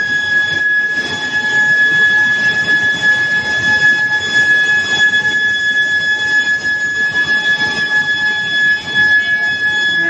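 Steel billet induction heater running: a steady high-pitched whine from the induction coils, with fainter overtones above it, over a constant machinery noise.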